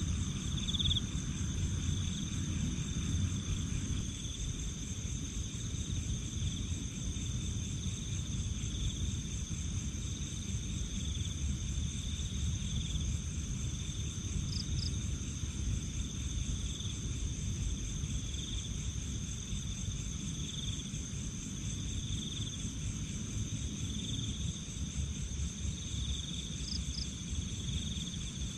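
Night insect chorus of crickets: steady high trilling, one voice swelling and fading every second or two, over a constant low rumble.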